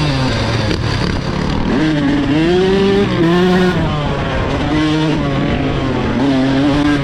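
Yamaha dirt bike engine running hard on a trail, its pitch rising and falling over and over as the throttle is worked and the gears change, over wind rush and rumble.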